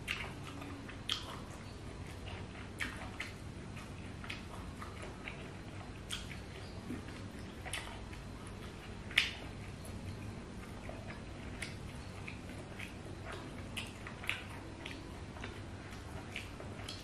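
Close-up eating sounds of a man eating rice and curry by hand: wet chewing and lip smacks with scattered short clicks, and one louder smack about nine seconds in.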